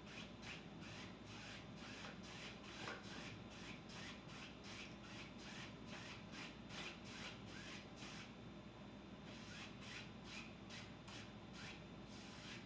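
A wide bristle paint brush scratching across a stretched canvas in short, quick strokes, about three a second, pausing briefly about two-thirds through.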